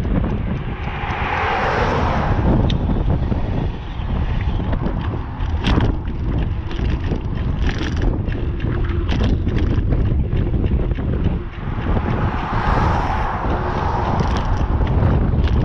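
Strong wind buffeting the microphone during a bicycle ride: a constant low rumble, with scattered short knocks and rattles. Two swells of hiss rise and fade, one near the start and one near the end.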